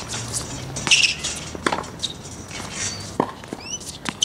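Tennis ball hits during a rally on a hard court: two sharp pops about a second and a half apart, with short high squeaks near the end.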